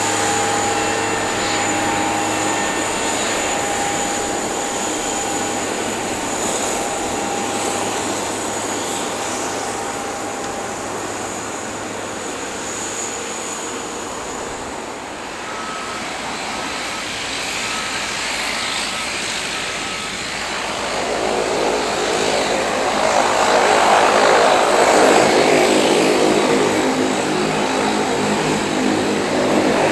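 Steady jet-engine hum and whine at a Boeing 737 MAX on pushback behind a tug. About two-thirds of the way in, the louder, buzzing drone of a de Havilland Canada Dash 8 turboprop taxiing with its propellers turning takes over.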